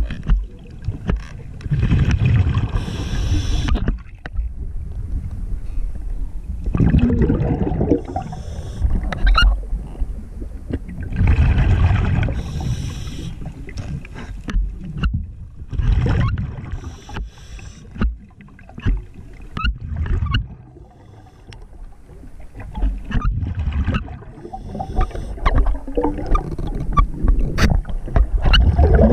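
Underwater bubbling in bursts every few seconds, typical of a diver's exhaled breath rushing past the microphone, with scattered sharp clicks between the bursts.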